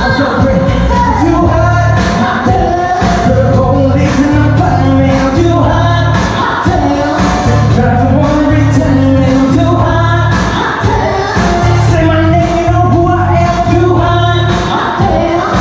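Pop song sung live into microphones over an amplified backing track, with several voices and a steady heavy bass beat.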